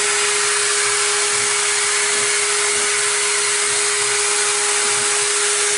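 Stepcraft CNC router spindle cutting with a Hoover vacuum running for dust extraction, the enclosure doors open: a loud, steady hiss with a constant whine through it.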